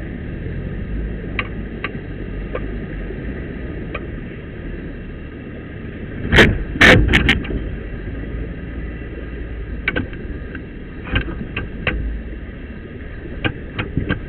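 Off-road vehicle's engine running low and steady as it crawls through a rocky creek crossing. Sharp knocks and clunks come through at intervals, loudest in a cluster about six to seven seconds in.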